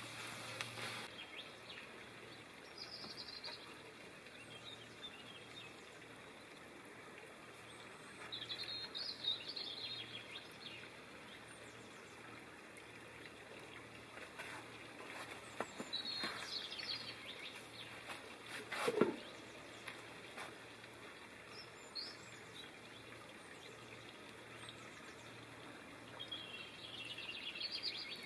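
Birds chirping now and then over a steady outdoor background with insects. The loudest sound is a single falling whistle about two-thirds of the way through. A pan sizzles over the fire for the first second.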